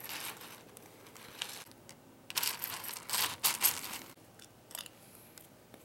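Hard, dry cookie-shaped cereal pieces clattering and rattling in a bowl, in a short spell at the start and a louder, longer run in the middle, then a few light clicks.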